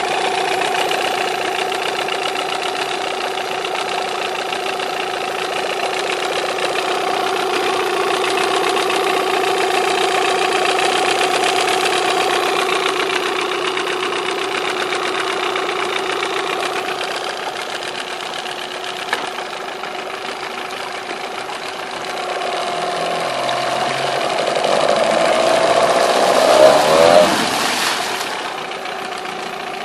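1988 Yamaha 8SG 8 hp two-stroke tiller outboard running in a test barrel, idling steadily. Near the end it is revved up with the tiller's twist-grip throttle, the propeller churning the water, then drops back to idle.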